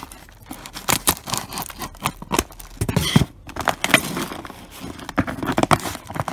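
A cardboard box sealed with clear plastic packing tape being cut and pulled open by hand: irregular scratching, crackling and sharp ticks of tape and cardboard.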